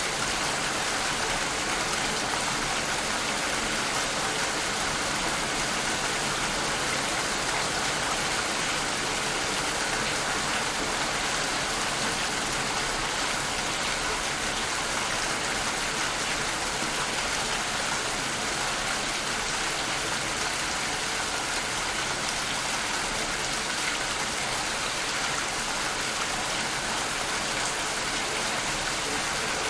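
Steady rainfall, a dense, even hiss of drops falling on surfaces.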